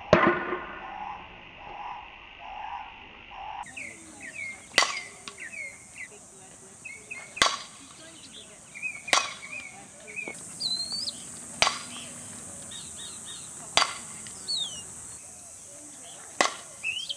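Softball bat hitting a softball seven times in batting practice: sharp single cracks about two to three seconds apart, the first the loudest. Birds chirp between the hits over a steady high hiss.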